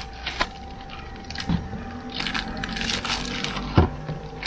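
Foam packing blocks creaking and squeaking as they are pulled off an inverter, with a plastic bag rustling and a few sharp knocks of handling in a cardboard box.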